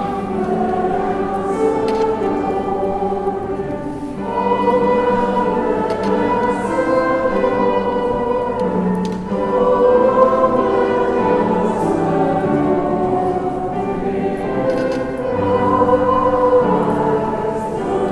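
Church choir singing a hymn with music, held notes in several voices, moving through long phrases.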